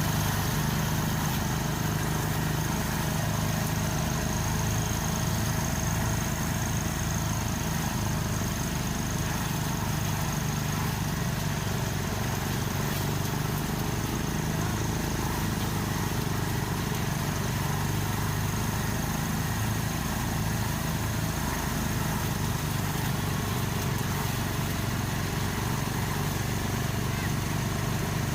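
A small engine running steadily at an even speed, with a constant low hum and a thin high whine over it.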